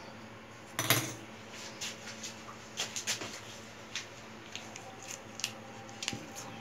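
Kitchen utensils handled around an aluminium kadai: one louder knock about a second in, then a scatter of light clicks and taps as a spoon puts ghee into the pan.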